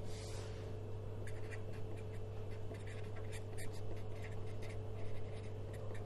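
Pen writing on a sheet of paper: a run of short, faint scratchy strokes starting about a second in, over a steady low hum.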